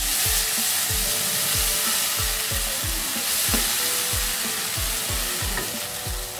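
Wet masala of potatoes and peas sizzling in a non-stick wok, with a little water just added to keep the spices from burning, while a wooden spatula stirs it. The sizzle is a steady hiss, strongest about the first second.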